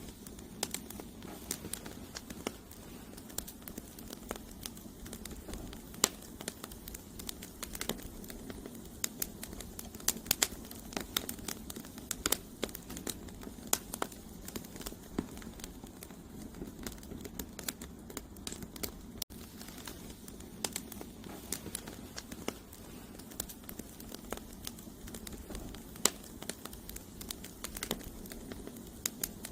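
Wood fire burning: firewood logs crackling and popping at irregular intervals over a steady low rush of flame.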